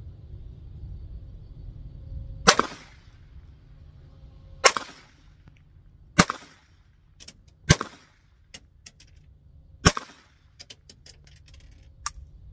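Five pistol shots fired one at a time, each a sharp crack with a short echo, about one and a half to two seconds apart, with fainter clicks between them.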